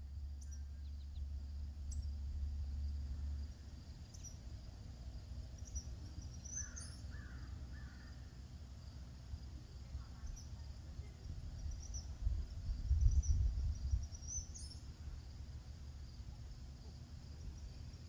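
Quiet summer-evening outdoor ambience: insects chirping faintly and high, with a bird calling three times about seven seconds in. A low rumble of wind on the microphone swells around thirteen seconds in.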